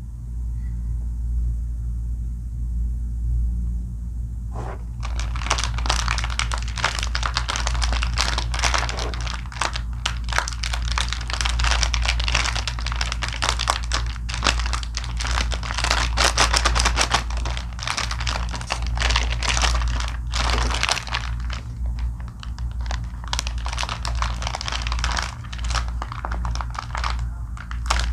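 Plastic wrapper of an Ülker Halley milk-chocolate snack crinkling and rustling as it is unwrapped by hand, starting about five seconds in, with short pauses near the end. A steady low hum runs underneath.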